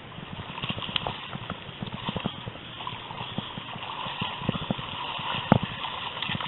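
River water running over rocks, with irregular knocks and clicks throughout and one louder knock about five and a half seconds in.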